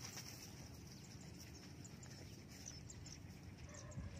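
Faint rural field ambience: a steady low rumble with scattered short, high-pitched chirps.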